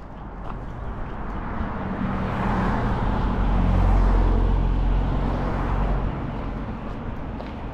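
A car drives past, its engine and tyre noise building to a peak about halfway through and then fading away.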